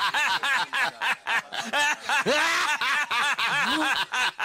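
Men laughing together in a long run of short, rapid chuckles.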